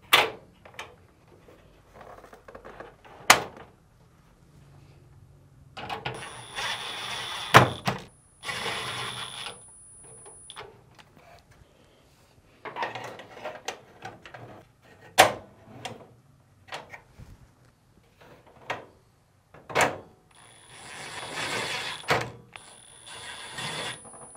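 A cordless driver running in two spells of a few seconds each, driving screws through the dryer's sheet-metal mounting brackets. Between the spells come sharp clicks and knocks as the metal brackets are fitted by hand.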